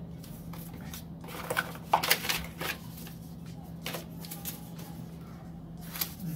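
Paper leaflets and cards being handled and rustled, with a cluster of louder crinkles from about one to three seconds in and a couple more later, over a low steady hum.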